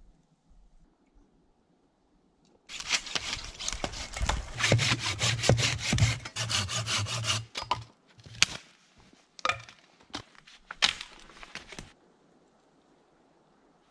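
Folding hand saw cutting through a wooden log in quick back-and-forth strokes for about five seconds. After that come several separate sharp cracks of wood.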